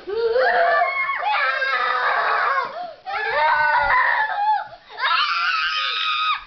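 Young boys shrieking and screaming in play while they wrestle, in three long high-pitched stretches with short breaks between them.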